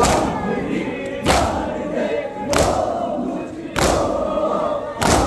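A large crowd of mourners doing matam, striking their chests in unison in a steady beat about once every 1.3 seconds, with the crowd's voices between the strokes.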